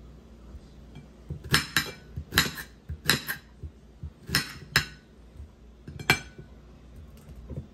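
Chef's knife cutting pineapple into cubes on a ceramic plate, the blade striking the plate in a series of sharp clinks, about eight in all, from about one and a half to six seconds in.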